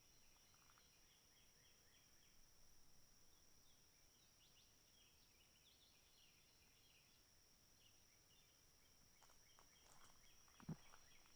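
Faint outdoor insect chorus: a steady high-pitched trill with scattered chirping over it, and a footstep or two near the end.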